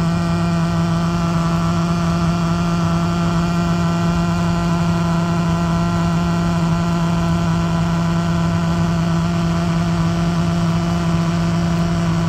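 Faulty aircraft cabin loudspeaker giving a loud, steady electrical buzz: one low hum tone with a stack of overtones, over the aircraft's cabin noise.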